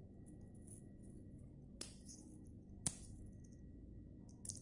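Crisp fried little-millet spicy biscuits handled and snapped between the fingers. Three short sharp cracks over a faint background, the loudest about three seconds in.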